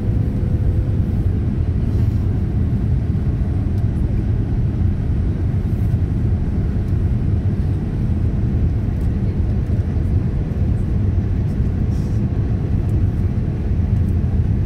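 Boeing 787-9 cabin noise heard from a window seat in flight on descent: a steady, loud low rumble of engines and airflow past the fuselage.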